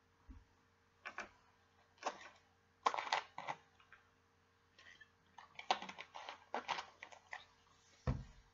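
A plastic drink bottle being handled and drunk from: scattered light clicks and crinkles, busiest in the second half, and one louder, deeper thump near the end.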